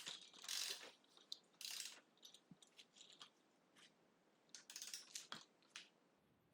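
Faint scattered clicks, rattles and short scrapes of hand tools and metal parts being handled, in preparation for torquing the rear axle nut.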